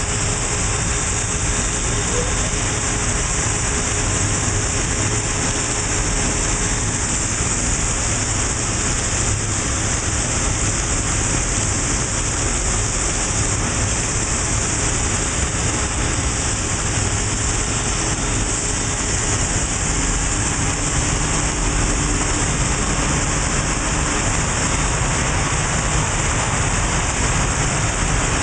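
Butler Newall universal CNC strut grinder at work, its grinding wheel running under a flood of coolant: a steady splashing hiss over a low machine hum.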